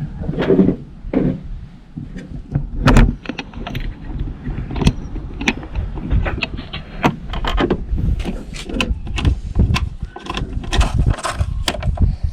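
Irregular clicks, knocks and rattles of the tail light's plastic section and its fasteners being handled and aligned back into place.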